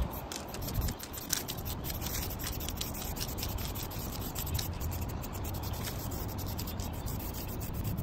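Paintbrush scrubbing paint onto rough tree bark to cover graffiti: an irregular run of scratchy rubbing strokes, several a second, over a steady low rumble.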